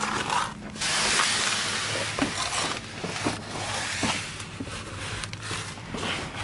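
Handling noise as someone shifts under a car with a handheld camera: a hissing scrape lasting about two seconds, then softer rustling and a few light knocks over a faint steady low hum.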